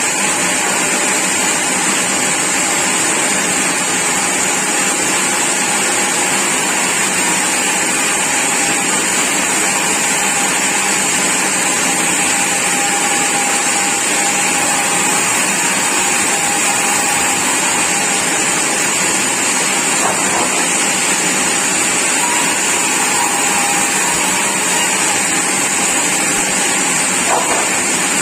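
Sawmill machinery running steadily: a loud, even mechanical noise with a faint steady whine.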